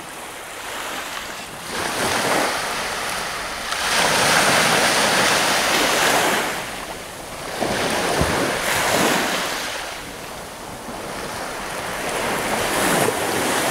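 Baltic Sea surf breaking on the beach, the wash swelling and falling every few seconds, with wind buffeting the microphone.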